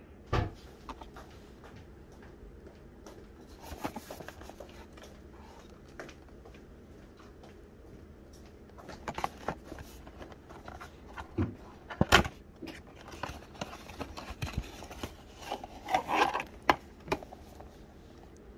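Hands handling and opening a paperboard box: scattered taps, knocks and rustling of the cardboard and packaging, loudest about twelve seconds in and again around sixteen seconds.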